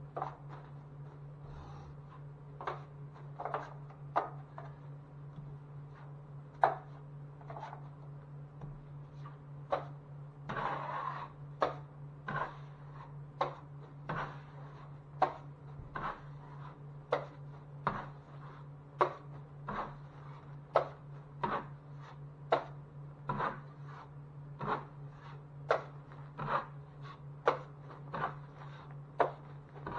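Hand drywall work: a string of short taps and scrapes, roughly one a second, over a steady low hum, with a longer scraping stretch about ten seconds in.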